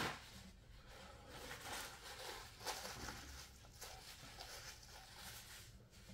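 Faint rustling of a paper tissue wiped across the mouth and nose, with soft handling noises, a little louder at the very start.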